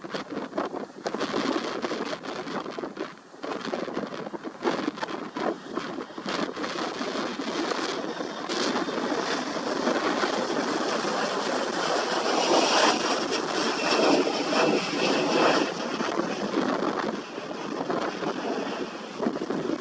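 Strong wind buffeting the microphone in irregular gusts, loudest about two-thirds of the way through.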